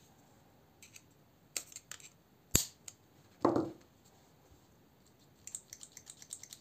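Handling noise from the parts of a stripped folding knife handle. A few light clicks come first, then one sharp click, the loudest sound. A short scrape follows, and near the end there is a run of quick light ticks.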